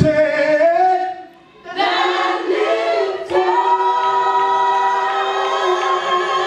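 Gospel choir singing, breaking off briefly about a second in, then coming back in and holding a long sustained chord.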